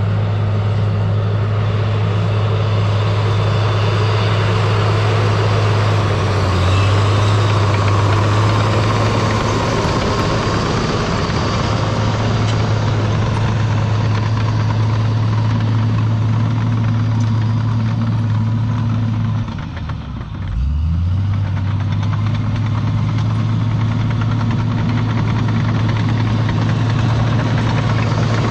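Diesel engine of a crawler earthmoving machine running steadily at work. About 20 seconds in, the engine pulls down under load, its pitch sagging, then recovers.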